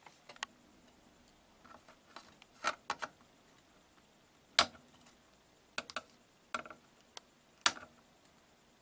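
Irregular light clicks and taps of a soldering iron and solder wire against a television circuit board while a capacitor's leads are soldered. The sharpest clicks come about halfway through and near the end.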